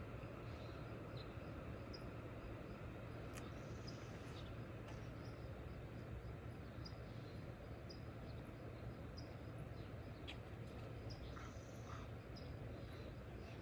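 Steady outdoor background noise with a constant low hum, over which a short, high chirp repeats about once a second, like a small bird or insect calling.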